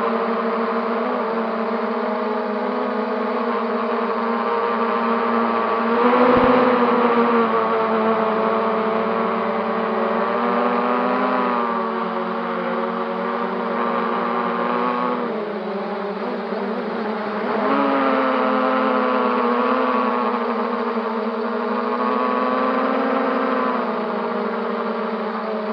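Quadcopter's brushless motors and propellers whining steadily, the pitch rising briefly about six seconds in, then dipping and climbing back around the middle, as the throttle changes.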